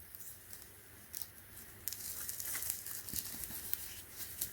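Faint rustling and crinkling of a cotton six-panel cap being handled, starting about two seconds in, with small crackles.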